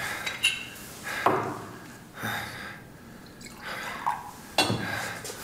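A wounded man's laboured gasping breaths, about four in a row, with water being poured at the bedside.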